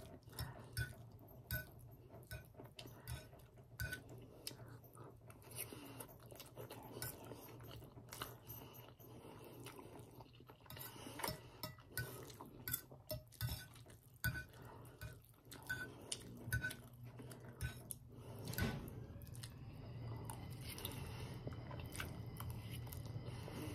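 Metal fork clinking and scraping against a ceramic plate in many short taps, mixed with close-up chewing of soft noodles.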